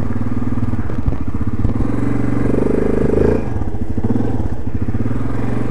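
Yamaha Grizzly ATV's single-cylinder four-stroke engine running at low revs, its revs rising briefly a little past the middle and then dropping back.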